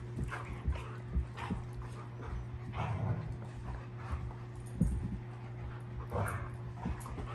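Irish Setters play-wrestling: scuffling and bumping, with short whimpering and yipping play noises, two of them louder about three and six seconds in, over a steady low hum.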